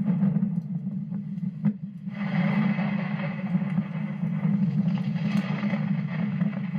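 Thunderstorm wind and rain on a phone camera's microphone, a steady low rush with a single click, then a louder rush of wind and rain setting in about two seconds in.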